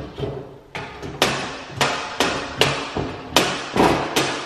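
Pliers twisting a sheet-metal knockout tab on a breaker panel cover back and forth, making a series of sharp metal clicks and clanks about two a second as the tab is worked loose to snap off.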